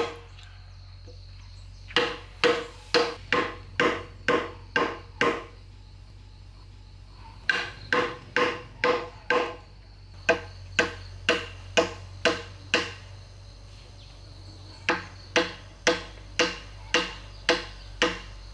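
Hammer blows in four quick runs of five to eight strikes, about two a second, each blow with a short ring, with brief pauses between the runs.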